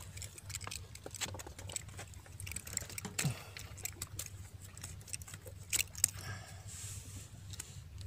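A freshly landed sheri (spangled emperor) flapping and slapping on the rock and being handled, a run of irregular slaps, clicks and knocks, loudest about six seconds in.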